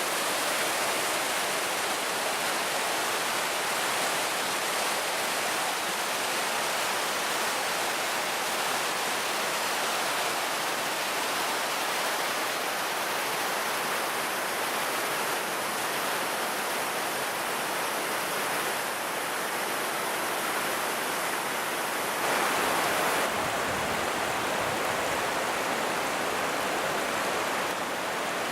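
Fukiware Falls, a broad waterfall on a river gorge, rushing steadily as a continuous roar of falling water. The rush grows fuller and deeper about 23 seconds in.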